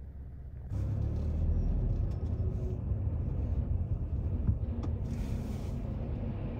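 Steady low road and engine rumble heard inside a car's cabin while driving on an expressway, jumping louder under a second in.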